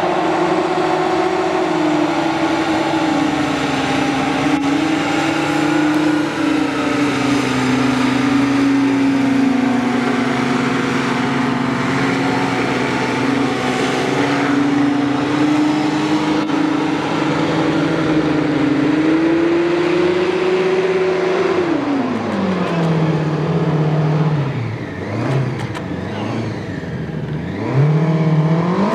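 Small hovercraft's engine and ducted thrust fan running at speed, a steady loud drone. About 22 seconds in the pitch drops sharply as it throttles back, then climbs again near the end as it speeds up.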